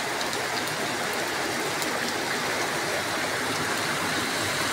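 Heavy rain falling and muddy runoff rushing down a street and spilling over a pavement edge, a steady hiss of water.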